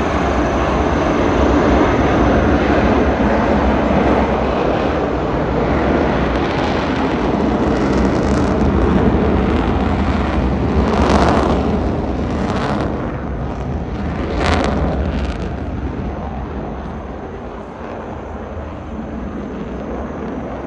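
Jet engines of three fighter jets at high power as they take off together in formation and climb away: a continuous loud rushing jet noise, with two brief sharper rasps about halfway through, fading somewhat toward the end.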